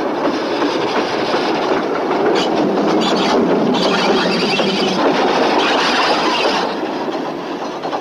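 A moving train: the steady rumble and rattle of its wheels on the rails.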